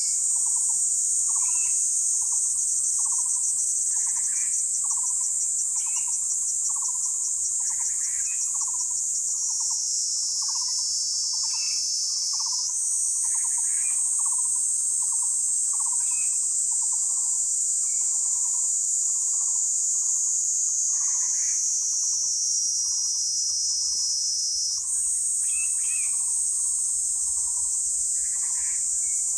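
Steady high-pitched insect chorus, like crickets or cicadas, throughout. Over it, an animal gives a short owl-like call about one and a half times a second, with scattered higher chirps between.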